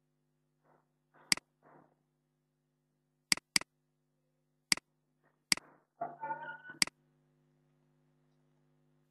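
Sharp, isolated clicks of a computer mouse and keyboard during form filling, about six in all, two of them in quick succession like a double-click. A steady low electrical hum runs underneath, and there is a short muffled murmur about six seconds in.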